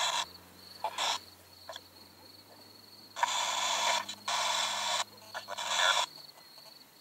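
Bursts of hissing radio static from a small handheld speaker, cutting in and out abruptly: a short burst about a second in, then three longer ones in quick succession past the middle. A faint steady low hum runs underneath. It is the static of a radio-sweep 'spirit box' used to listen for spirit voices.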